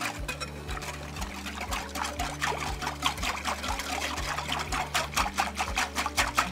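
Wire whisk beating a cornstarch, sugar and spice slurry in apple juice in a glass mixing bowl: rhythmic swishing strokes with the wires ticking against the glass, a few strokes a second, quickening near the end.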